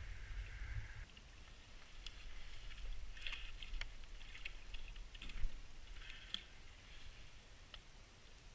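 Small water sounds against a plastic kayak hull, with scattered light clicks and ticks and one dull knock about five seconds in. A steady hiss with a low rumble cuts off about a second in.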